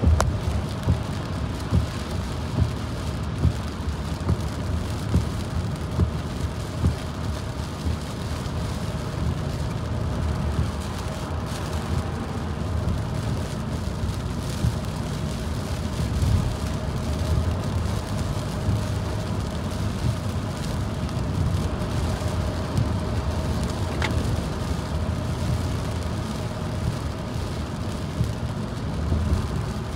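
A car driving on a wet highway in the rain, heard from inside the cabin: a steady low road rumble with the hiss of tyres and rain. There are soft, regular thumps about once a second during the first few seconds, and a single click near the end.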